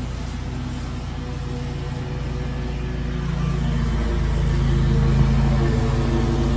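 Gravely stand-on mower's engine running steadily while its deck cuts long grass. It grows louder about three seconds in.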